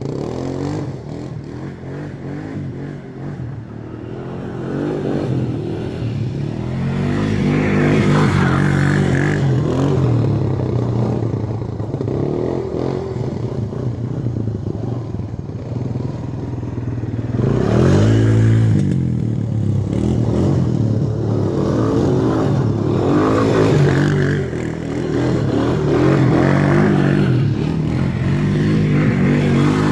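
ATV (four-wheeler) engine running under throttle as it is ridden, its pitch rising and falling with the revs, building over the first several seconds, with a quick rev up and back down about eighteen seconds in.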